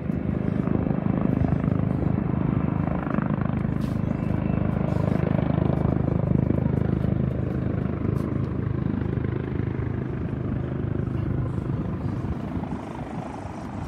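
Business jet's engines at takeoff power: a loud, steady noise that builds in the first second and eases off over the last couple of seconds as the jet goes away.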